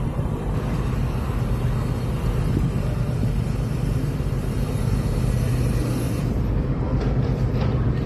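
Steady low drone of a moored fishing trawler's engine running at idle.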